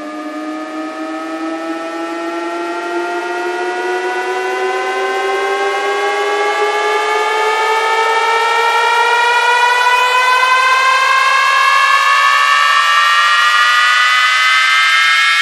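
Electronic synth riser: a buzzy tone rich in overtones climbing slowly and steadily in pitch and growing louder, with a second layer rising faster across it, the build-up at the start of a bass sound-check track.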